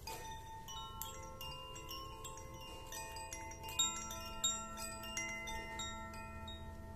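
Bamboo-tube chord wind chime, a copy of a Koshi chime, played by hand-swinging its clapper. It gives a stream of bell-like pitched notes that overlap and ring on, with a few stronger strikes near the middle.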